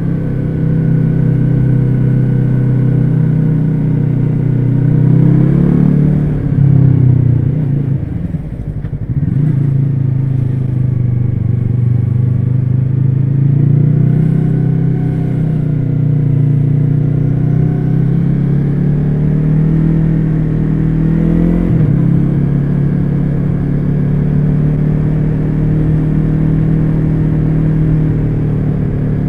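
Yamaha R3's parallel-twin engine running through an unbaffled Akrapovic carbon slip-on exhaust while riding. The engine note holds fairly steady, rises and then falls away about six to nine seconds in, and drops abruptly in pitch a little past twenty seconds.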